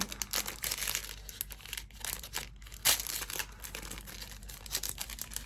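Packaging crinkling and rustling as a small bat hair barrette is worked out of it by hand, in irregular crackles with a sharper one about three seconds in.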